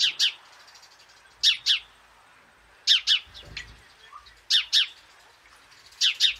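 Eurasian tree sparrow chirping: a sharp double chirp repeated about every one and a half seconds, five times.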